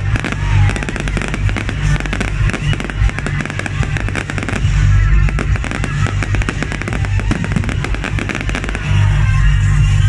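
Fireworks display going off in a dense barrage of rapid cracks and pops, with music and its steady bass playing underneath.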